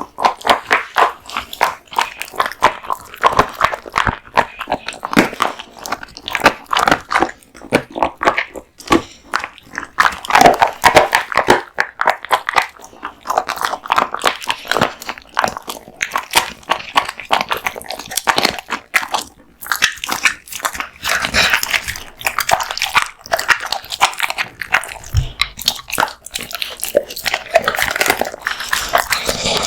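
American Bully dog chewing raw meat and bones, with wet biting and irregular bone crunches, several a second.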